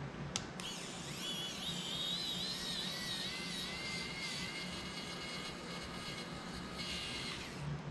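Pen-type electric precision screwdriver running on a screw in a small FPV drone, a thin motor whine that rises as it spins up and wavers in pitch with the load. It begins with a click and cuts off near the end.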